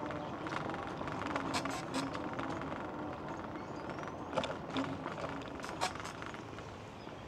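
Wheels rolling along a cracked concrete sidewalk: a steady rumble with a few sharp knocks, the loudest a little past four seconds in.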